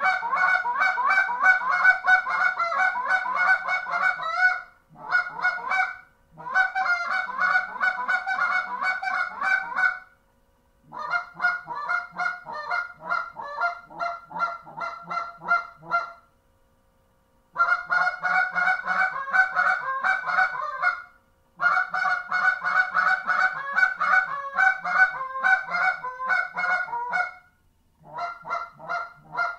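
Zink Little Man short-reed goose call, fitted with well-worn Zink guts, blown by hand in fast runs of honking notes, about five notes a second, each run lasting several seconds with short pauses between.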